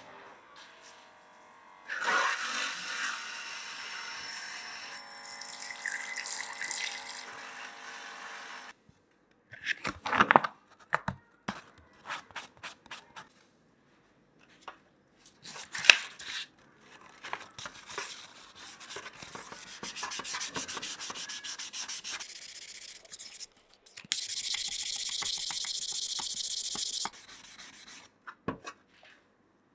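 Hand wet-sanding a brass cup with 1000-grit sandpaper: stretches of rubbing, scraping strokes, broken by a few sharp knocks and clicks, the loudest about ten and sixteen seconds in.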